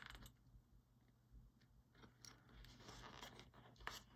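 Faint scratching and small ticks of an X-Acto craft knife cutting and picking at the corners of a small cut-out on a cutting mat.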